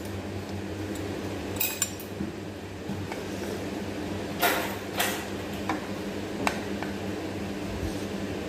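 Spoon clinking and scraping against a plate while eating rice: a handful of sharp clinks, two close together near 2 s and a cluster in the middle, over a steady low hum.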